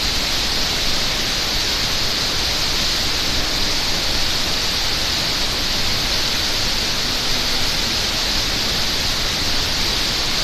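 Waterfall rushing, a steady unbroken wash of falling water.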